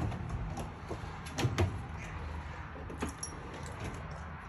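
Drawers of a metal rolling tool chest being slid shut and open on their runners, with a few sharp metallic clacks, the loudest pair about a second and a half in.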